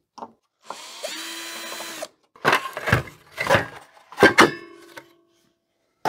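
A power drill-driver runs steadily for about a second and a half, driving out screws to free the circuit board and its aluminium heatsink. Then come several sharp clattering knocks of hard parts being handled, the loudest with a short metallic ring.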